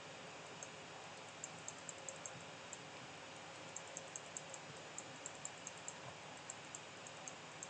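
Faint clicking of a computer mouse and keyboard, in short quick runs of several clicks, over a steady hiss.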